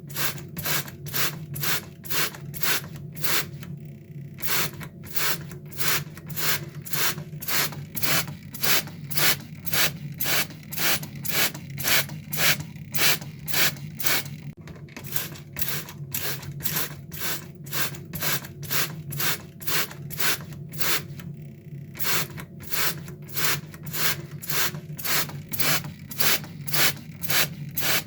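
Water sprayer squeezed over and over: short hissing sprays, about two or three a second, with a few brief pauses.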